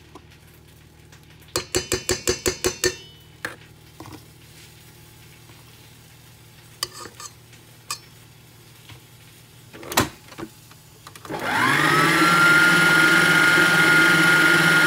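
Stand mixer with a balloon whisk: about a second and a half in, a quick run of about nine ringing taps, then a few faint clicks. Near the end the motor switches on, rising quickly in pitch to a steady loud whine as the whisk beats butter into the whipped mixture.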